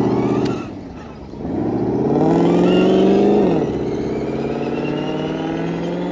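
Simulated straight-piped HEMI V8 engine sound played through the RC truck's onboard sound-controller speaker. It is revving high, falls off about half a second in, then climbs again as the truck pulls away. About three and a half seconds in the pitch drops at an upshift of the simulated automatic transmission and then holds steady, with a faint rising whine underneath.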